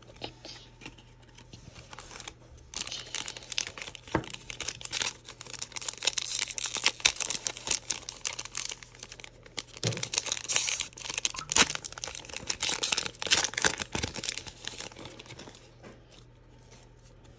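A foil trading-card pack being torn open and crinkled by hand, with dense crackling from about three seconds in until about fourteen seconds. Quieter rustling follows as the cards are slid out of the wrapper.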